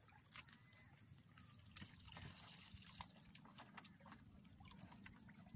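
Faint water dripping and trickling around a wooden boat, with scattered small ticks.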